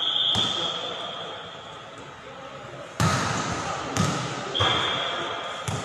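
Volleyball referee's whistle, one steady blast of about a second at the start, then the ball struck hard several times with echoing smacks in the hall. Another whistle blast comes about four and a half seconds in.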